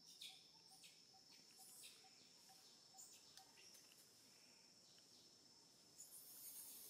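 Near silence: a faint, steady high-pitched insect trill, with scattered faint clicks and rustles.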